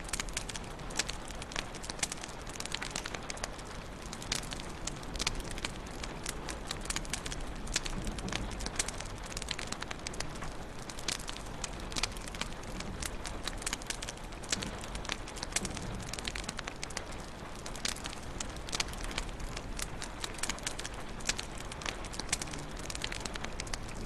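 Wood fire crackling in a fireplace: a steady hiss with dense, irregular sharp pops and snaps, over a low rumble.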